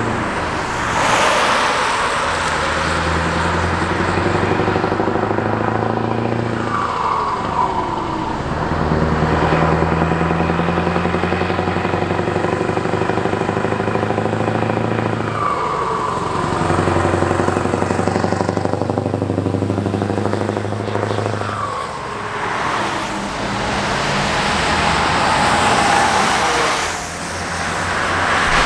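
Scania 164L 580's 16-litre V8 diesel pulling hard through the gears as the truck accelerates past: the engine note climbs in each gear and drops at three gear changes.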